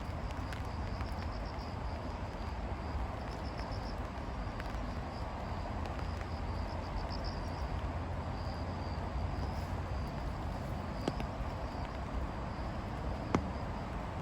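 Insects chirping in a steady high-pitched trill with rapid pulses, over a low steady rumble. Two short sharp clicks near the end.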